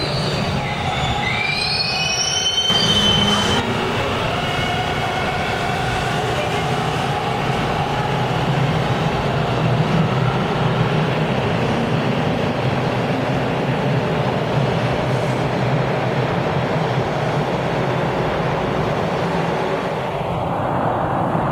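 TTC subway train running past along a station platform. Its wheels squeal in several rising and falling tones for the first few seconds, then the cars run on with a steady rumble.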